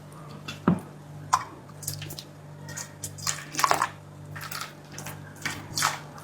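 Irregular wet squelches and drips as a freshly scalded geoduck clam is handled and its shell pulled off.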